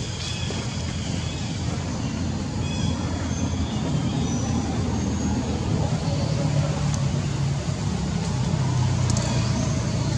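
Steady low rumble of motor-vehicle traffic, an engine growing a little louder in the second half, with a few faint high chirps.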